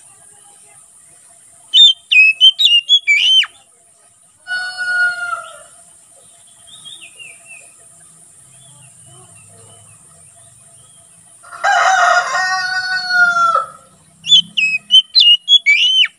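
Oriental magpie-robin singing two short, loud phrases of rapid, varied whistles, one near the start and one near the end. A rooster crows once in between, in a longer, lower call, with a shorter similar call earlier.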